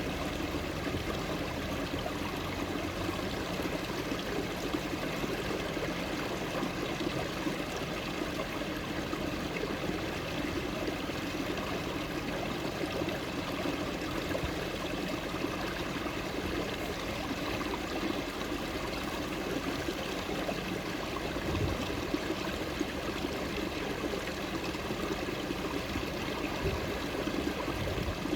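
Running water, a steady and continuous rushing with no breaks.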